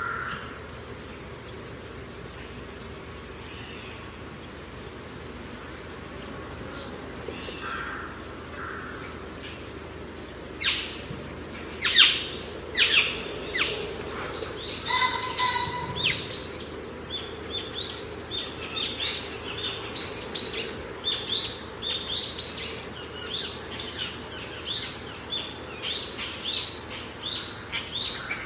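Small birds chirping and singing over a steady outdoor background hiss. The chirps start about ten seconds in and come several times a second through the second half.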